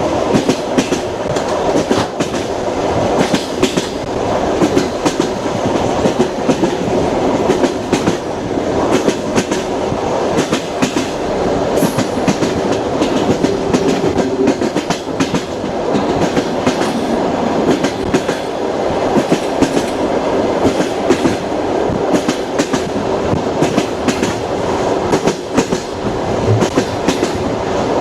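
Moving train: wheels running on the rails with a steady rumble and a continual clickety-clack of sharp knocks over the rail joints.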